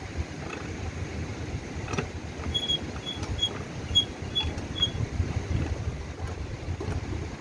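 Hand-cranked squid roller press turning, its rollers rumbling low and steady as they flatten a squid into a thin sheet. A run of six short, high squeaks comes about two and a half seconds in.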